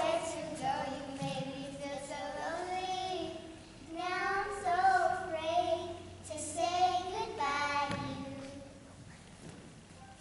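Children singing, in phrases with long held, wavering notes; the singing stops about eight seconds in.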